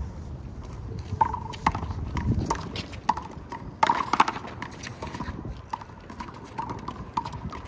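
Wall handball rally: an uneven run of sharp smacks as the rubber ball is hit by hand and bounces off the wall and pavement, the loudest cluster about halfway through, with players' feet on the court.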